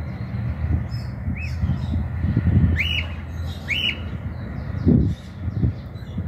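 Cockatiel giving short whistled calls that rise and fall in pitch: a faint one about a second and a half in, then two louder ones about a second apart near the middle. A low steady rumble runs underneath.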